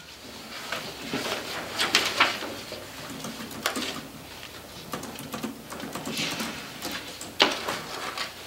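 Sheets of paper rustling and being handled, with scattered small rustles and a few sharper clicks.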